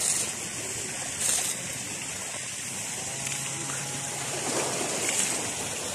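Pool water splashing and lapping as a swimmer paddles, over a steady hiss. There are brief louder splashes at the start, just over a second in, and about five seconds in.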